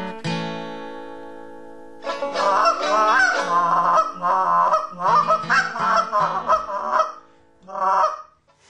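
An acoustic guitar chord rings out and fades over the first two seconds. Then a goose call is blown in a fast run of honking notes for about five seconds, with one short call near the end.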